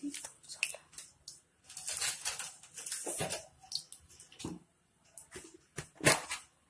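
Irregular small taps, clicks and rustling of kitchen containers and utensils being handled while spices are added, with a sharper knock near the end.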